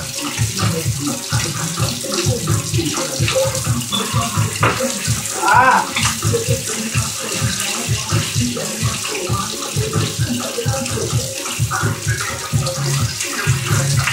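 Whiting frying in hot oil: a steady, busy sizzle packed with small crackles.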